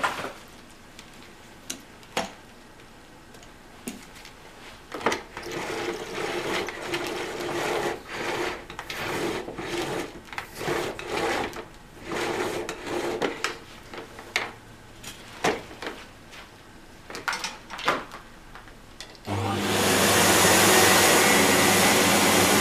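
Clicks, knocks and rubbing of a vacuum hose and wand being handled. About 19 s in, the Lux D790 Royal canister vacuum's 1150 W motor starts abruptly and runs steadily and loudly, coming on as it is plugged in because its switch was already on.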